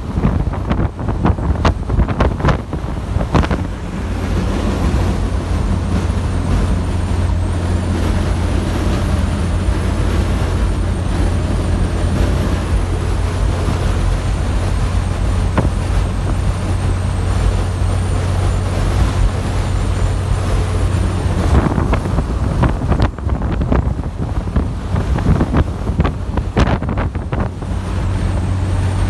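Truck driving, heard from inside the cab: a steady low engine and road drone with a rushing noise over it. Scattered sharp knocks and taps come in the first few seconds and again near the end.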